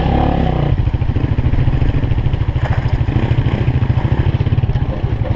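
Motorcycle engine running at low speed, an even, rapid chugging pulse.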